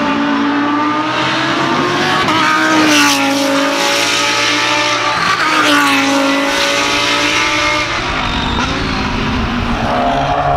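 Lamborghini Huracán GT3 race car's V10 engine working through a chicane: its note jumps sharply up in pitch twice, about three and five and a half seconds in, each time sinking slowly again.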